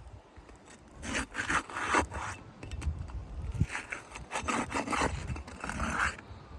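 Asphalt roof shingles being pried loose, a rough scraping in two spells as their adhesive tar seal strips are broken so the nails beneath can be pulled.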